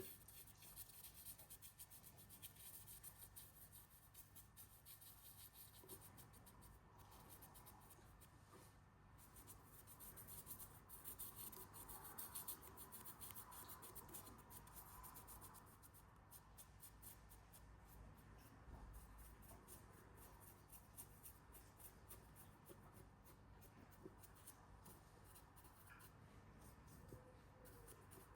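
Faint brushing: a soft Vallejo shader filbert brush rubbing paint onto a 3D-printed plastic figure, heard as many small dry scratches.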